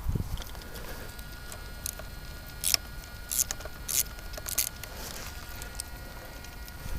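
Short, sharp clicks and scrapes of hand tools and parts being handled on an RC car, about four or five clustered in the middle, while a clamp blocking the engine's choke lever is being worked free.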